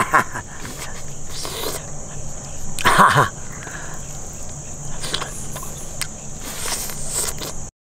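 A man eating rice and meat by hand: close, wet chewing and lip-smacking, with one louder smack about three seconds in. Insects chirr steadily in the background.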